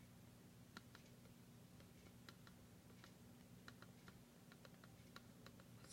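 Near silence: the faint steady hum of an air conditioner, with scattered faint clicks.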